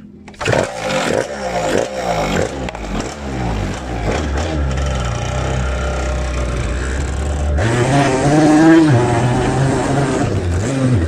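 Motorcycle engine revving hard, its pitch sweeping up and down several times, then running on at high revs as the bike rides off, with another rise and fall near the end.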